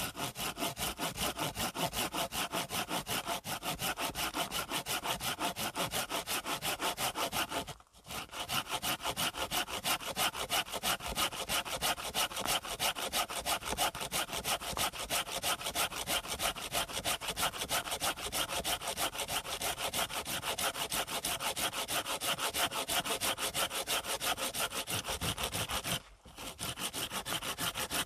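Folding hand saw cutting through a wooden pole, with quick, steady back-and-forth strokes. The sawing stops briefly about eight seconds in and again near the end, then carries on.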